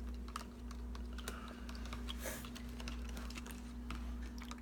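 A spoon stirring borax into water in a plastic container, making faint, irregular clicks and taps against the container, over a steady low hum.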